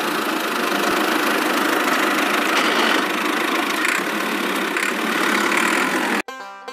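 Miniature tractor's small engine running steadily at idle, cutting off suddenly near the end.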